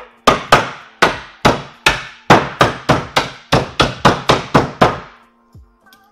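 Wooden mallet pounding ice wrapped in a Lewis bag, crushing it finely: a run of loud, even blows, about three a second, that stops about five seconds in.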